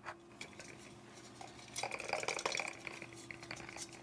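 Light metallic clinking and clattering about two seconds in, from a utility knife and the metal frame of an 8-inch woofer being handled and set down once the scraping of the old foam surround has stopped. A faint steady hum runs underneath.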